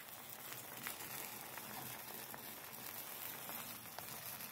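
Cooking liquid bubbling in a pan of meat and tomatoes on a gas stove: a steady faint hiss with small scattered pops.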